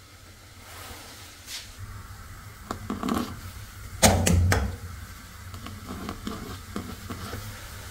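Quiet kitchen handling sounds: a few light clicks and knocks of cups and utensils, the loudest about four seconds in.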